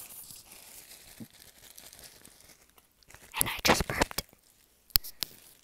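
Clear plastic bag of wrapped candies crinkled right up against the microphone: quiet at first, then a loud burst of crinkling about three and a half seconds in, followed by a few sharp crackles.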